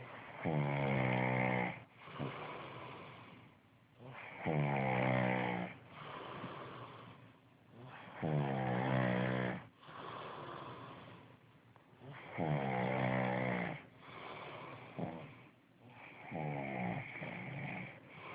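Steady snoring in a slow, regular rhythm: five snores about four seconds apart. Each is a low buzzing snore lasting a little over a second, followed by a softer breathy exhale.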